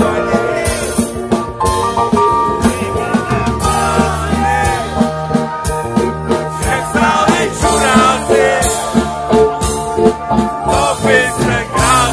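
Live rock band playing loud and steady: drum kit keeping a regular beat under bass and electric guitars, with a singer's voice over them.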